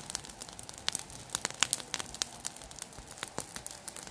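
Burning heap of dry grass and leaf litter crackling: dense, irregular snaps and pops over a faint hiss.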